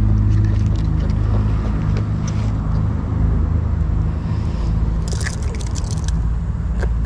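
A steady low hum of a running motor or engine, made of several even tones. About five seconds in comes a quick cluster of sharp clicks.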